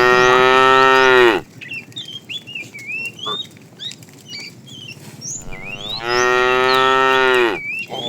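Cows mooing: two long, loud moos, the first ending about a second and a half in, the second starting about five and a half seconds in and lasting about two seconds.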